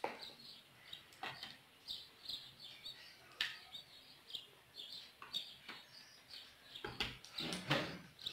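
A small bird chirping over and over in short high calls. A few light knocks and, near the end, a louder clatter from a plastic glue bottle being handled and set down on a glass tabletop.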